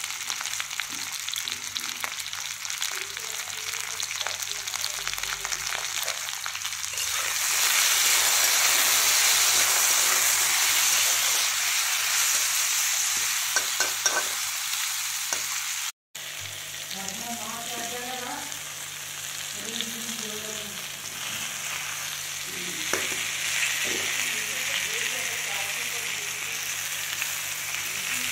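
Diced potatoes and tomato sizzling in hot oil in a kadai while a spatula stirs and scrapes them. The sizzle grows louder about a quarter of the way in, with a few sharp clicks of the spatula against the pan, and cuts out for an instant about halfway.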